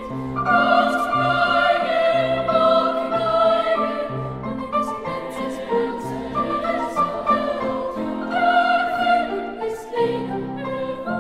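Classical music with a choir and orchestra, laid over the fireworks footage as a soundtrack.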